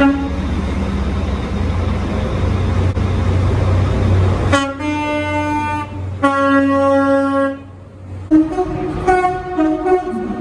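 Train running with a steady low rumble, then its horn sounding two long blasts of about a second and a half each. A shorter stretch follows near the end, with two or more horn notes sounding together.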